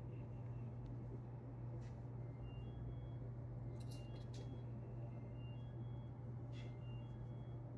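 Knitting needles clicking a few times, soft and sharp, over a steady low hum, with short high chirps scattered through.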